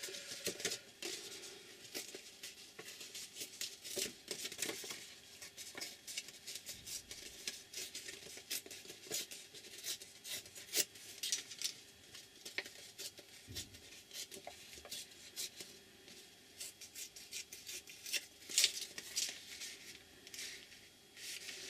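A paper photo print being torn and handled: many short, irregular crisp rustles and ticks.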